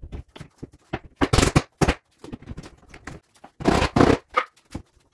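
Top panel of a flat-pack cabinet being worked down onto the cabinet sides by hand: a run of small clicks and knocks of board on board, with two louder bursts of knocking and scraping, about a second and a half in and again about four seconds in.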